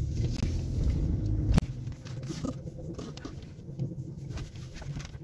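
Low hum and rumble from underneath a 2019 Ford Expedition, heard inside the cabin while driving: an abnormal rubbing-like drivetrain noise that the mechanic judges already severe. About a second and a half in it cuts off sharply with a click, leaving a fainter low rumble with light ticks.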